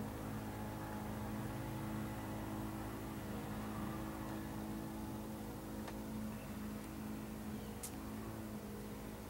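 Steady low mechanical hum of a running motor, with a couple of faint clicks in the second half.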